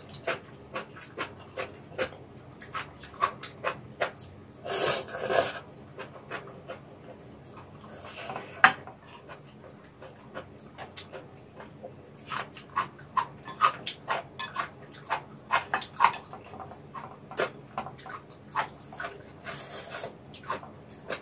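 Close-miked eating sounds: wet chewing clicks from mouthfuls of noodle soup, with noodles slurped in one longer pull about five seconds in and a short one near nine seconds.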